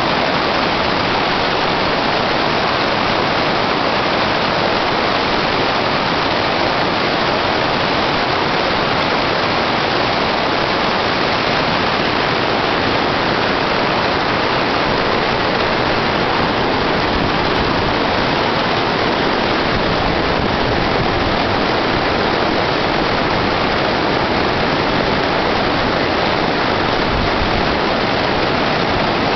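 Rushing water of a small side waterfall and its rapids, a loud, steady rush of whitewater with the stream running high.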